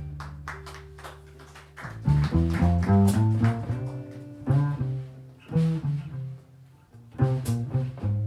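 A jazz combo plays a ballad live. Chords on a hollow-body electric guitar sit over plucked double bass notes, with drum cymbal strokes on top.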